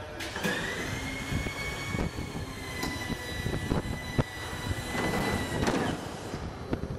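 Piper Arrow PA28R-201 landing gear extending: the electric hydraulic pump whines, rising briefly as it spins up, then holding a steady pitch for about five and a half seconds before cutting off. Clunks and knocks sound as the gear legs swing down.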